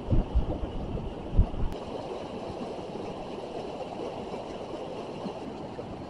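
Stream water cascading down a rocky waterfall, a steady rush. A few low thumps on the microphone come in the first two seconds.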